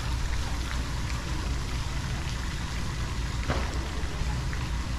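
Outdoor city street ambience recorded on foot: a steady low rumble under a noisy hiss, with a few faint ticks and one sharper click about three and a half seconds in.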